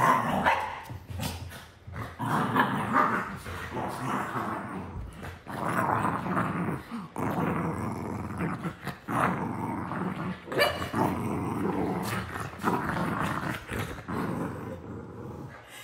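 Cavalier King Charles spaniel growling in play, on and off, while biting and tussling with an oven mitt on its owner's hand.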